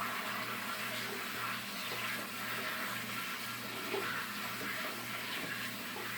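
Water running from a kitchen sink sprayer as lettuce is rinsed under it: a steady hiss of spray.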